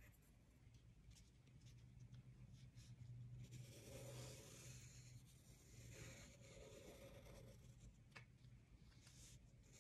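Faint scratching of a pencil sketching shapes, in strokes heard most clearly from about three and a half to five and a half seconds in and again around six to seven and a half seconds, over a faint steady hum.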